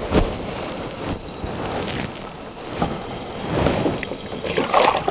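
Wind buffeting the microphone, with water sloshing and splashing in a plastic basin as hands are washed in it, busiest in the last second or so.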